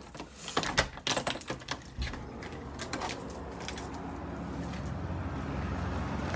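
Clicks and rattles from keys, bags and the handheld phone as they are carried, then a steady low rumble from about two seconds in.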